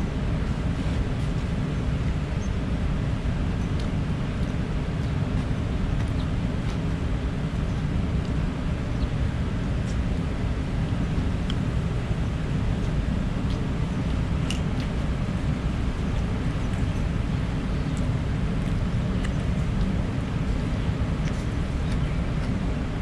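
Steady outdoor background rumble, heaviest in the low range, with a few faint clicks scattered through it.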